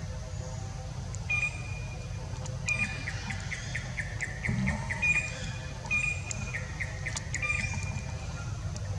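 A songbird singing a repeated phrase every second or so: a short held high whistle followed by a quick run of clipped, slightly falling notes, over a steady low rumble.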